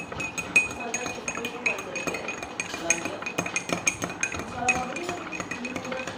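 Metal spoon stirring liquid in a drinking glass, clinking repeatedly against its sides.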